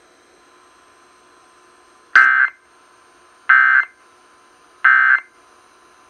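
Three short bursts of Emergency Alert System end-of-message data tones, about a second and a half apart, played through a portable CD boombox radio's speakers. They mark the close of a Child Abduction Emergency (Amber Alert) broadcast.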